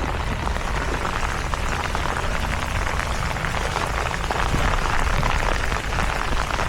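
Steady rain falling and pattering on surfaces, an even hiss with fine crackle.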